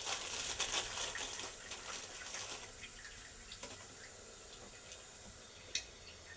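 Water running in a toilet, loudest at first and fading over a few seconds to a faint trickle, with a sharp click near the end.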